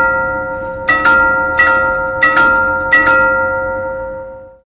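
A short melody of struck chime bells, like tubular bells. Several notes at different pitches are struck over the first three seconds, some in quick pairs, and each rings on and fades away towards the end.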